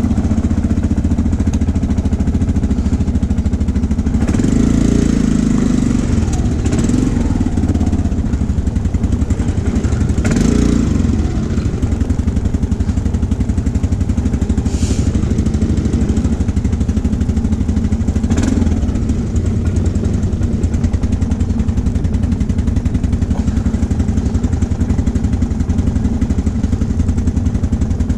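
ATV engine running steadily under way on a rough dirt track, revving up briefly twice in the first half. A few sharp knocks or clacks come later.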